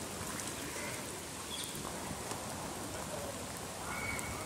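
Heavy monsoon rain falling steadily onto floodwater, an even hiss.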